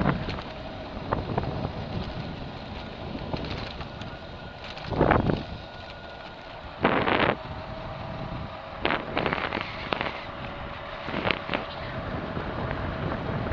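Wind rushing over the microphone as a Super Turbo 800 electric scooter rides at speed, around 16 to 18 mph, through grass. A faint steady whine runs underneath, and several short bursts come from bumps.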